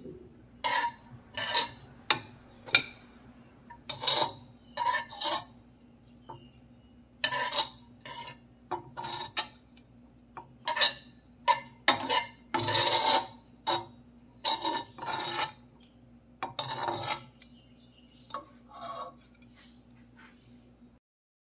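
Stainless slotted spatula scraping and scooping fried rice out of a nonstick wok onto a plate: a string of irregular short metal scrapes and taps over a steady low hum.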